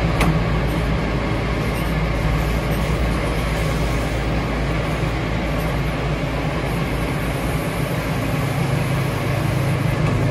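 Aircraft tow tractor running steadily under load as it tows an airliner by a towbar on the nose gear: a continuous low engine drone with tyre and road noise.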